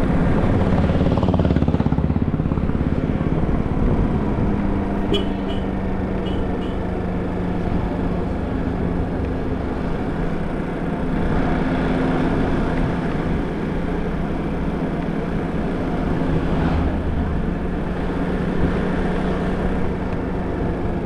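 Small scooter engine running steadily while riding along a road, with wind and road noise rushing over the microphone.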